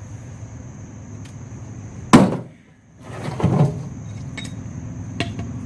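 An axe striking the empty steel fuel tank of a Volvo 240: one loud, sharp metallic hit about two seconds in, with a quieter, rougher noise about a second later.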